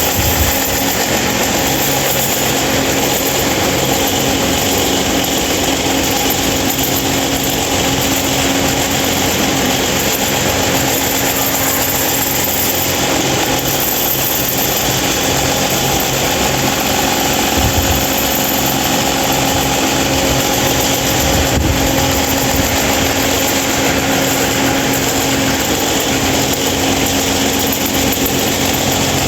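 A 26-inch Mahita stand fan running with a loud noise: a steady motor hum under an even rush of air, unchanging throughout.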